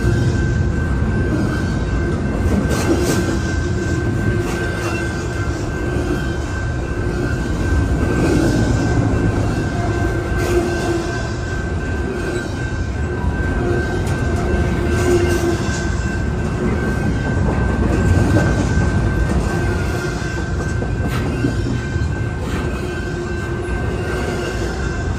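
Intermodal freight train cars rolling past with a steady rumble of steel wheels on rail. Scattered clicks from the wheels come over the rails, and a thin, steady high whine runs through it.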